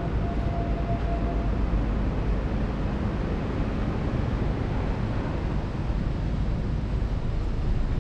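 Steady roadside traffic noise on a city street, with a thin steady tone lasting about a second near the start.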